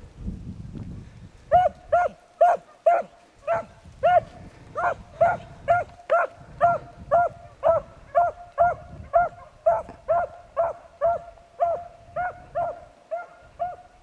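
A hunting beagle baying, a steady string of short, even barks about two a second starting about a second and a half in: the voice a driven beagle gives while running a track by scent. Brush rustles before the barking starts.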